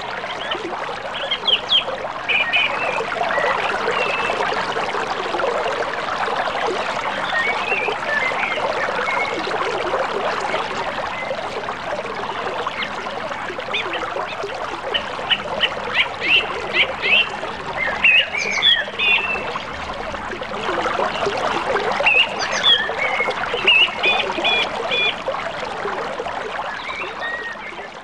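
Steady rush of flowing river water with birds chirping over it, including a quick run of repeated chirps about halfway through. The sound fades out near the end.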